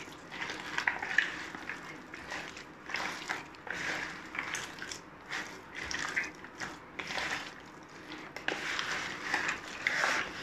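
A bare hand squeezing and turning chicken wings in a thick spice-and-egg marinade in a plastic tub: wet squelching and sloshing in irregular bursts, about one a second.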